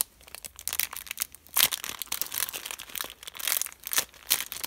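Clear plastic packaging bag crinkling in quick, irregular crackles as hands squeeze a foam squishy through it, the loudest crinkle about one and a half seconds in.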